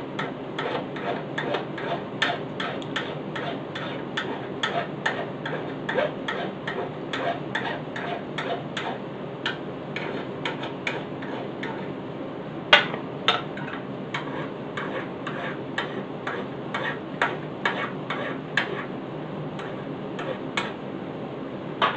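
Hand file rasping back and forth on a metal brake rod in steady strokes, about two to three a second, deburring a freshly drilled cotter-pin hole. A single louder knock comes about 13 seconds in.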